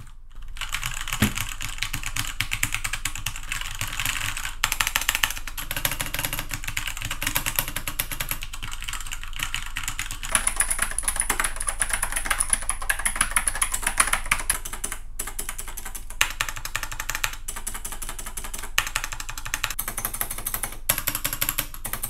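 Continuous fast typing on mechanical keyboards: first a Keychron K2 with brown switches, then the full-size Ajazz AK510 retro keyboard from about ten seconds in, the clacks changing character with the switch.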